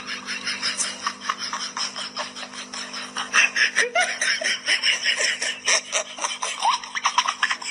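Kitten chewing and biting on a plastic drinking straw: a quick, uneven run of crunching, rasping clicks, several a second, busier and louder in the second half.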